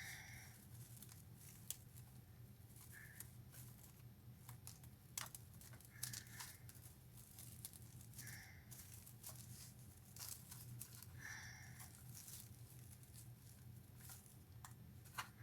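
Faint crinkling and rustling of craft materials being handled, with scattered small clicks and snips.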